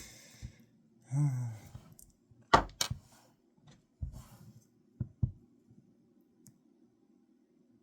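A short sigh-like voiced breath, then a few sharp knocks and clicks of something being handled close by, over a faint steady low hum.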